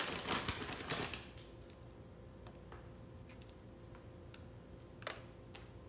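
Crinkly rustling of a plastic bag of walnuts being handled for about the first second and a half, then a few faint, scattered clicks as pieces are sprinkled by hand.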